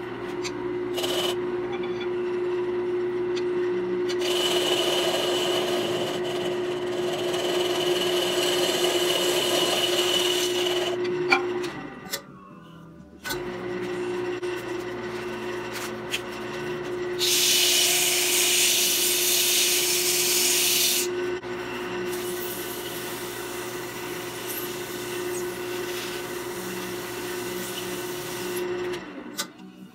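Wood lathe running with a steady hum while a turning tool cuts the spinning oak bowl, the cutting hiss coming in two long passes. The sound drops out briefly near the middle.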